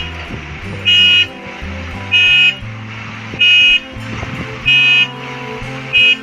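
Reversing alarm of a construction vehicle beeping at a steady pace, about one short high beep every second and a quarter, five times.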